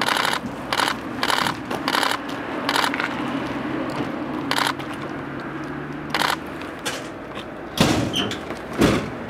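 Short bursts of rapid clicking at uneven intervals, typical of press camera shutters firing in bursts, over a low steady hum. Two heavier thumps come near the end.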